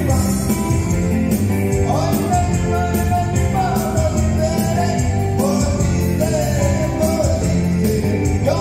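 Keyboard-backed dance music in the soltinho rhythm, with a steady bouncing bass beat and a lead voice singing a sliding melody.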